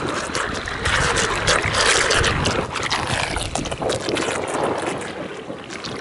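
Gusty wind buffeting the microphone over choppy water, with rough crackling gusts that are strongest in the middle.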